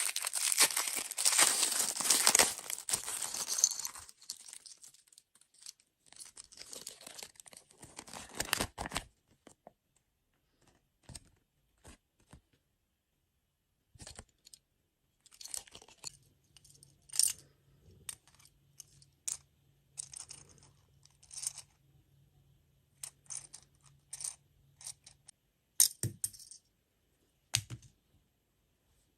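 Crinkling of plastic packaging being handled for about four seconds, then scattered small clicks and taps.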